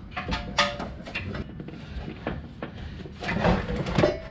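Clicks and clunks of a car's gear shift selector being handled and fitted, plastic and metal parts knocking together as it is moved.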